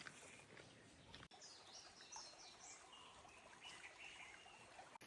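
Near silence: faint outdoor ambience with a few faint, short bird chirps in the first half.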